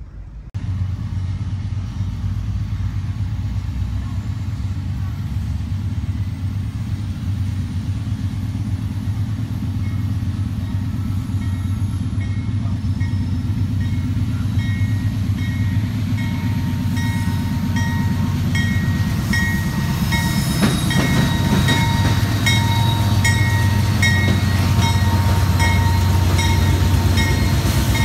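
Union Pacific diesel locomotives approaching and passing at the head of a stack train, a steady low engine rumble that slowly grows louder. From about two-thirds of the way through, regular clicks of the wheels over rail joints join in.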